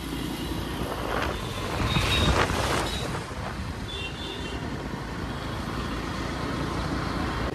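Road noise heard from a moving motorcycle in heavy traffic: engine rumble and wind, with a louder passing vehicle about two seconds in. A few short high beeps sound about four seconds in.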